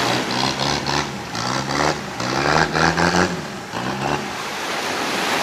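Longtail boat engine on its long propeller shaft, running and revving up and down several times as the boat gets under way, over breaking surf. The engine note dies away about four seconds in, leaving the surf.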